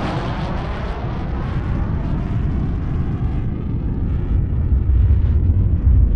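Jet engines of a four-engined airliner at takeoff power on its takeoff roll: a steady roar whose deep rumble grows stronger toward the end.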